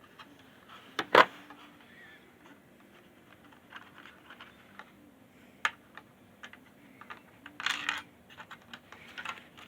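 Hard plastic dashboard trim pieces being handled and pressed into place: scattered clicks and taps, with a sharp snap about a second in and another near the middle.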